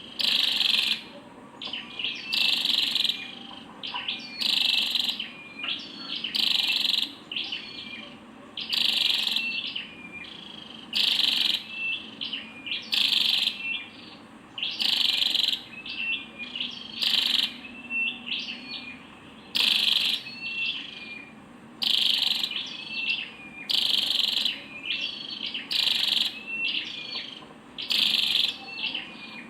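Female flowerpecker calling: a scratchy, high-pitched call repeated about every two seconds, with short thin notes between the calls.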